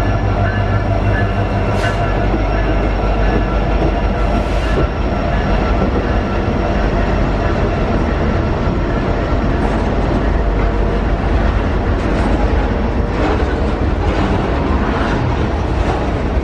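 Freight train rolling past: a steady, loud rumble of railcar wheels on the rails, with a few sharp clicks scattered through.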